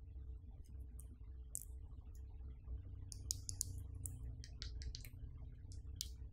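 Small sharp clicks and taps of fingers and fingernails handling a Samsung Galaxy A50 smartphone as it is turned over in the hands. There are a few single clicks, then a quick run of clicks about halfway through.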